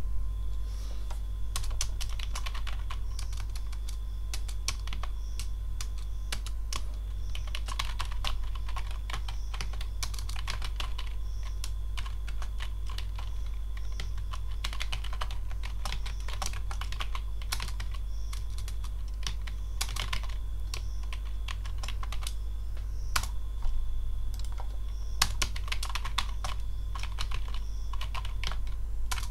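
Typing on a computer keyboard: runs of quick key clicks with short pauses between them, over a steady low hum.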